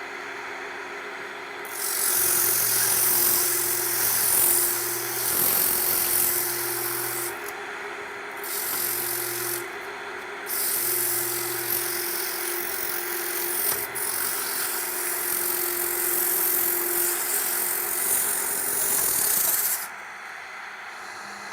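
Wood lathe running with a maple bowl blank spinning, its motor giving a steady hum, while a turning tool cuts the bottom of the bowl: a loud hiss of shaving wood in long passes that stops briefly twice and ends about two seconds before the lathe is left running alone.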